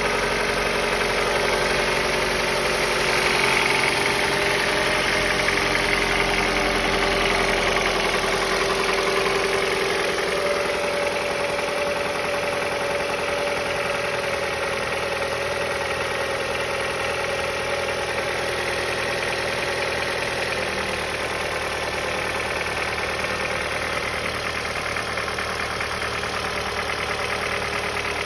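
Mitsubishi Lancer X's 1.8-litre 4B10 inline-four engine idling steadily, with a knock whose cause the owner is asking about.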